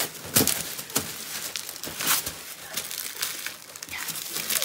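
Shiny metallic gift wrapping paper being torn and crumpled off a present in quick, irregular rips and rustles.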